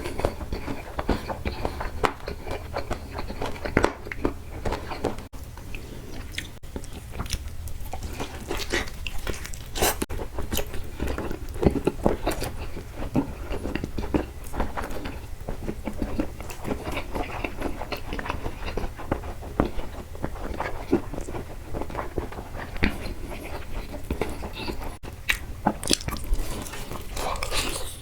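Close-miked chewing and biting of food, with irregular wet smacks and crunchy clicks.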